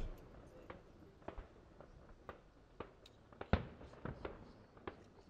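Fireworks going off: a scattered series of sharp bangs and pops, the loudest about three and a half seconds in.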